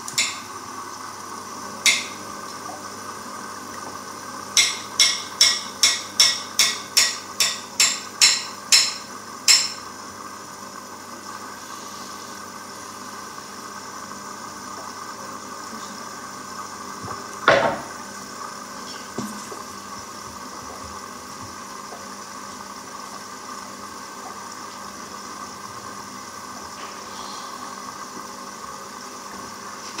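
Hoover front-loading washing machine running a wash with its drum full of detergent foam: a steady hum from the machine, with a quick run of sharp knocks about two a second from about four to ten seconds in, and one louder knock a little past the middle.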